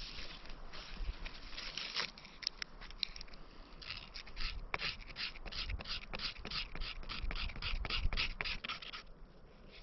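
Repeated scraping strokes, scattered at first, then a fast, even run at about four a second through the second half that stops shortly before the end.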